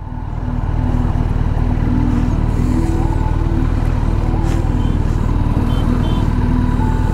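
Kawasaki Z900's inline-four engine idling at a standstill, a steady low rumble mixed with road and wind noise.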